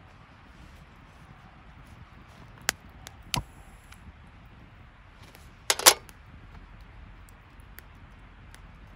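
A few sharp knocks over a faint steady hiss: one about two and a half seconds in, another a little later, and a louder quick double near six seconds.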